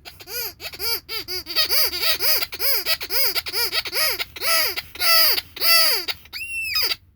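Rubber squeaky toy squeezed over and over, a rapid run of squeaks that each rise and fall in pitch, about three a second and slowing later, with one higher, longer squeak near the end.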